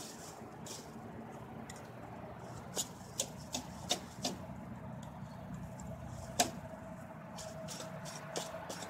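Scattered sharp clicks and taps, about half a dozen, from handling a metal food can, over a faint steady low hum.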